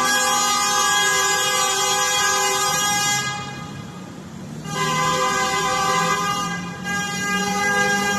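Several car horns held down together in a long, sustained blare of protest honking at vehicles cutting into the queue, easing off for a second or so about three seconds in, then resuming.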